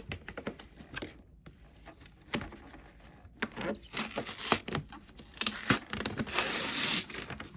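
Packaging being taken off a hammer-shaped tool set case: scattered clicks and knocks of handling, then about a second of loud rustling or sliding near the end.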